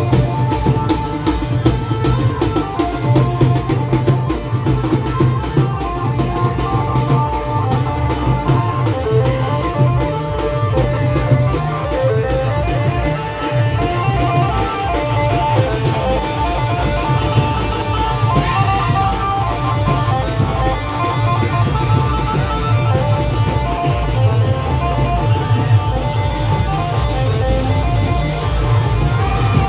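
Loud Timli band music from a rally band: a fast, steady drumbeat with heavy bass under a repeating melody line.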